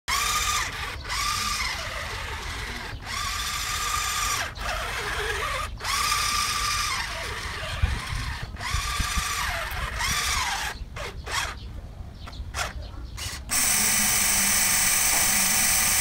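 Small electric gear motor of a homemade remote-control toy fire truck whining as it drives, spinning up, holding and winding down in runs of about a second with short breaks between. About 13 seconds in this gives way abruptly to a steadier, louder whir of a small electric water pump.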